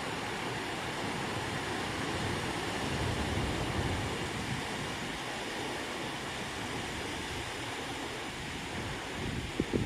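Lakeside park ambience: a steady outdoor wash of noise with wind buffeting the microphone in uneven low rumbles, and a brief bump of wind near the end.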